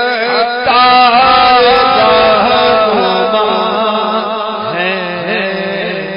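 A man's voice chanting an Urdu devotional verse (manqabat) without instruments, in long sliding, ornamented phrases over a steady low hum, trailing off softer near the end.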